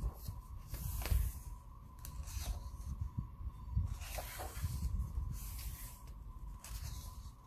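Paper pages of a coloring book being turned and smoothed flat by hand: several short rustling swishes of paper, with soft low bumps of the hand and book against the table.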